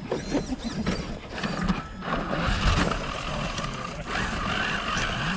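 Radio-controlled rock crawler driving over granite, heard from a camera on the truck itself. Its tyres and chassis knock and scrape on the rock at first. Then, from about two seconds in, the motor and gears whine steadily while the tyres scrabble for grip, and the whine rises and falls near the end.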